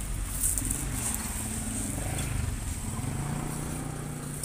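An engine running close by, a low hum whose pitch drifts up and down a little, over a faint hiss of lumpia frying on a flat griddle.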